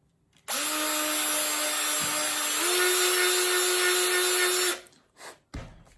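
Small Black & Decker drill with a tiny bit running for about four seconds, drilling out the pivot hole in a straight razor's scale. Its pitch steps up about halfway through, then the motor stops.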